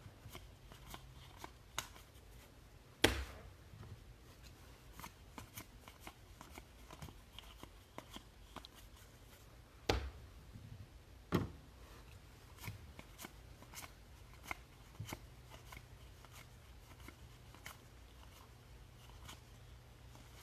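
Baseball trading cards being handled and flipped through by hand: soft scattered rustling and card-on-card clicks, with a few sharper taps, one about three seconds in and two around ten to eleven seconds in.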